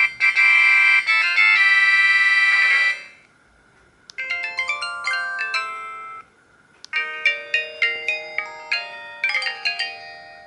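Samsung SGH-E900 factory ringtone: an electronic polyphonic melody in three short phrases with brief pauses between them: a loud held chord, then a falling run of notes, then a quicker run of short notes.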